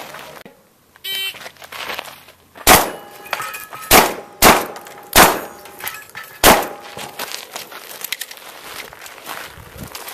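Five shotgun shots at an uneven pace over about four seconds, with steel targets ringing after several of the hits.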